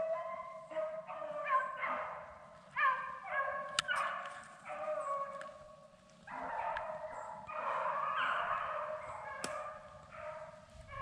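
Pack of beagles baying as they run a rabbit, several dogs giving tongue in overlapping, repeated calls.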